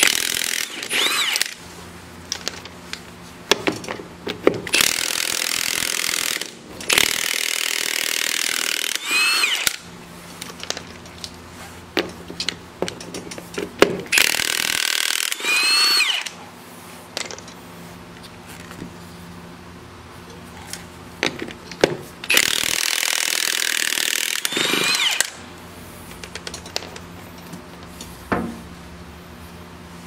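Milwaukee M18 FUEL 3/4-inch cordless impact wrench hammering forklift wheel nuts loose. It goes in several runs of a few seconds each, with clinks of the socket and loosened nuts between runs.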